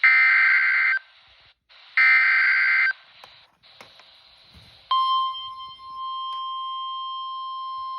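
NOAA Weather Radio EAS alert for a tornado warning: two buzzy, warbling bursts of the SAME digital header, each about a second long and a second apart. About five seconds in, the steady 1050 Hz weather-radio warning alarm tone starts and holds.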